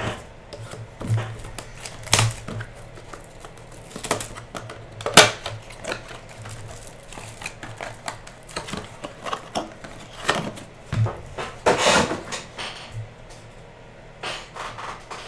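Hands unpacking a Panini Spectra basketball hobby box: scattered taps, clicks and rustles of wrapping and cardboard as the box is opened and its inner box handled. The sharpest tap comes about five seconds in.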